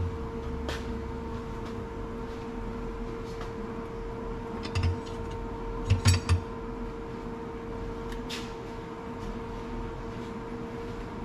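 Kitchen clatter: a few clinks and knocks of pots, pans and dishes being handled, the loudest cluster about six seconds in, over a steady hum.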